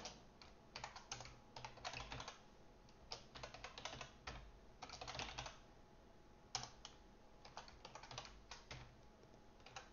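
Faint computer keyboard typing: quick runs of keystrokes broken by short pauses.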